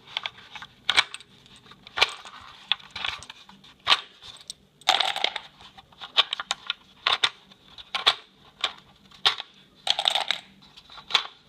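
Cartridges being pushed one at a time out of an AR-15 PMAG magazine, each round giving a sharp metallic click and clink, about one a second.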